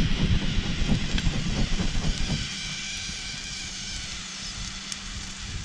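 Wind buffeting the microphone in gusts, with a few faint crackles; about two seconds in it drops to a quieter, steady hiss.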